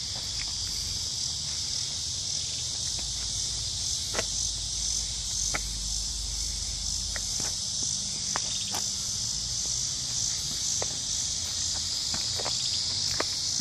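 Steady high-pitched drone of an insect chorus, with a few light clicks scattered through it.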